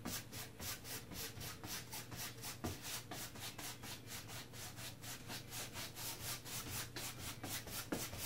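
A 2-inch household wall-painting brush scrubbing paint onto a stretched canvas in quick back-and-forth crisscross strokes, a scratchy bristle-on-canvas rasp repeating several times a second.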